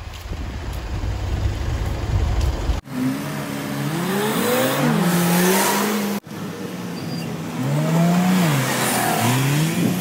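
Buses and road traffic at a bus station: a steady low engine rumble, then, after abrupt cuts about three and six seconds in, several rising and falling whines of vehicles accelerating and slowing.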